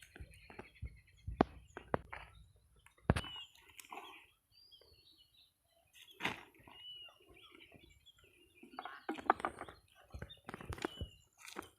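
Short, repeated bird chirps, with scattered sharp knocks and rustling, thickest about nine seconds in.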